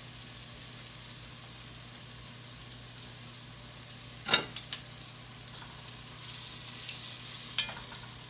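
Flour-dredged chicken drumsticks sizzling steadily as they brown in vegetable oil in an enamelled pot. A sharp metal clink of the tongs being picked up comes about four seconds in, with a lighter click near the end.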